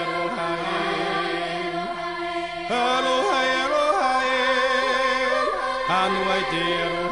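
Background music of long held notes, a chant-like drone, that gets louder almost three seconds in.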